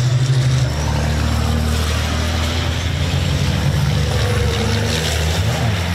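Racing trucks' diesel engines running hard as two trucks go by side by side. The engine note drops to a lower pitch about a second in.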